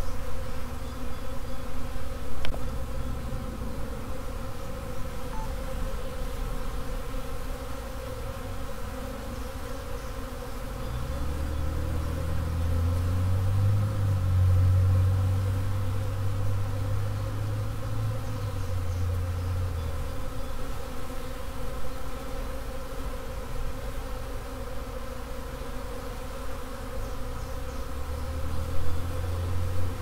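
Steady buzzing hum of a honey bee swarm clustered on a tree branch, with bees flying around it. A deeper low hum swells about a third of the way in, fades around two-thirds, and returns near the end.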